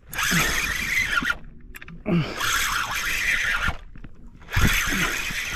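A hand line being hauled in hand over hand, with three pulls of about a second each: the line hisses and rubs over hands and gunwale, with short squeaks.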